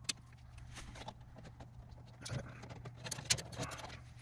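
Small clicks and rattles of hands and pliers working among the wires and wire nuts of an HVAC unit's control panel, a few clicks near the start and a cluster about two to four seconds in, over a steady low hum.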